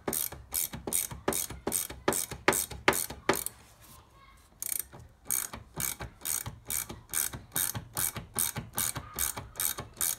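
3/4-inch ratchet spanner clicking as it spins nuts onto bolts, about three to four clicks a second. The nuts are only being run on, not yet tightened. The clicking stops for about a second about three and a half seconds in, then carries on.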